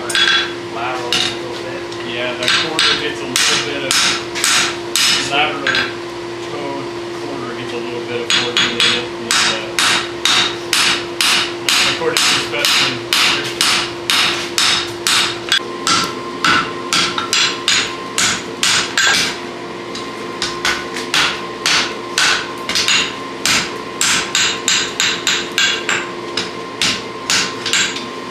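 Hammer blows on a hot steel draft horseshoe on the anvil in a steady run, about three strikes a second, with a short break about six seconds in. A steady hum runs underneath.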